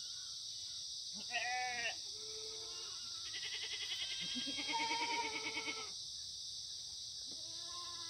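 Korean black goats bleating: a short call, a lower one, then a long wavering bleat lasting over two seconds, and another call starting near the end.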